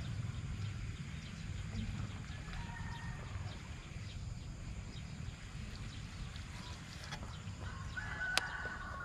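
A rooster crowing faintly twice, over a steady low wind rumble on the microphone, with one sharp click near the end.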